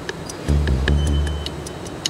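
Background music with a fast, even ticking beat; a deep bass comes in about half a second in.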